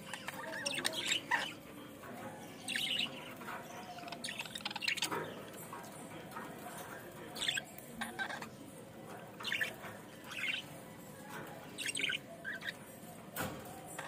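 Caged budgerigars chirping in short, scattered bursts, roughly one every second or so.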